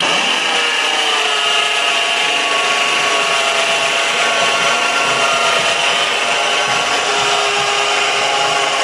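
12-volt electric winch switched on and running steadily, winding in its cable to raise a wheelchair lift platform. It is a loud, even motor-and-gear whine with several steady tones.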